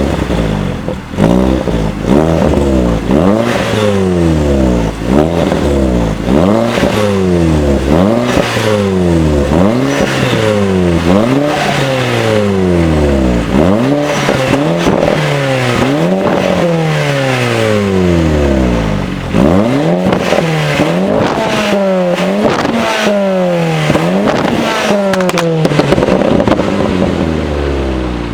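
Audi S3 8P's turbocharged 2.0 TFSI four-cylinder revving up and dropping back again and again, about once a second, heard through a 3-inch downpipe, a 200-cell sports catalytic converter and the stock S3 middle and rear silencers.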